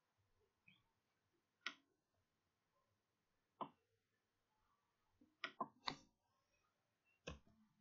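Computer mouse clicking about six times in near silence, with three clicks in quick succession a little past halfway.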